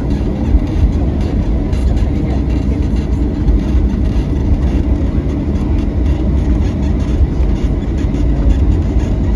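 Steady low rumble of cabin noise inside a Boeing 737-800 airliner: engines and airframe running evenly.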